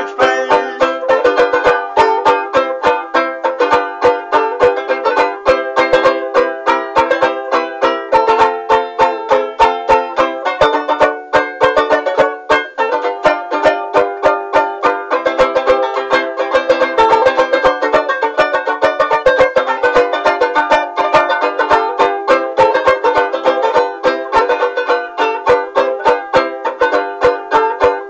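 Banjo ukulele (banjolele) strummed in fast, even chords, playing a solo instrumental break.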